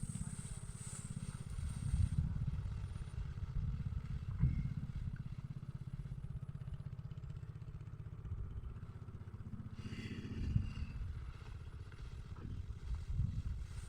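A small engine running steadily, a low rumble with a fast even pulse. A high insect buzz fades out about two seconds in.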